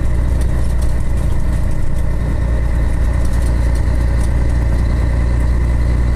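Scania 113 truck's six-cylinder diesel engine running steadily under way, heard from inside the cab as a deep, even drone.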